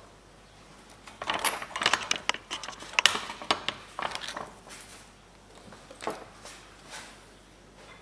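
Handling noise from small soldering tools: a quick run of light clicks, taps and small metallic rattles starting about a second in, easing to a few soft taps later.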